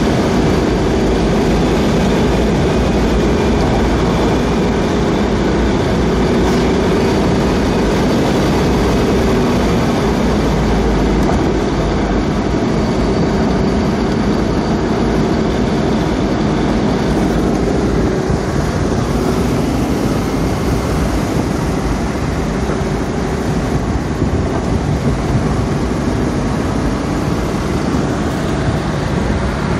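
Porsche Boxster's engine running steadily at cruising speed with the top down, mixed with constant wind rush and tyre noise in the open cockpit.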